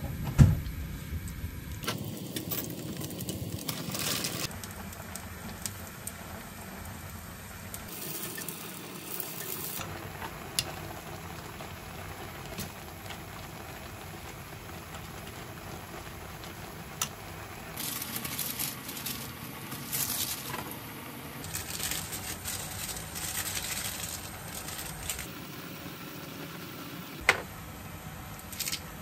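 Mushroom cream sauce bubbling at a boil in a frying pan while spaghetti is stirred through it with chopsticks, with a few sharp taps against the pan.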